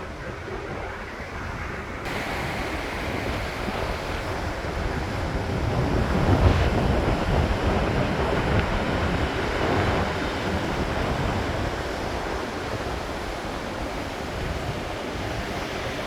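Roar of a large waterfall's falling water close by, with gusts of the falls' spray-laden wind buffeting the microphone. It steps up about two seconds in and swells loudest about six seconds in before easing.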